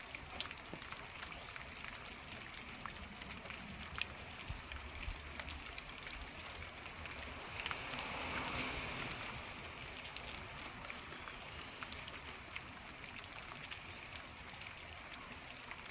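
Quiet outdoor ambience: a steady hiss with scattered faint ticks, swelling gently for a few seconds about halfway through.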